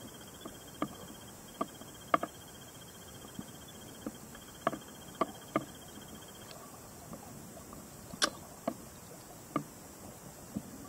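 Underwater audio from a submerged camera: a steady hiss with scattered sharp clicks and knocks, roughly one a second at uneven intervals, the loudest about eight seconds in.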